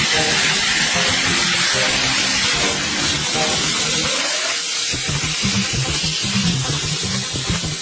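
Water spray hissing steadily against the motorcycle during washing, with electronic background music playing over it.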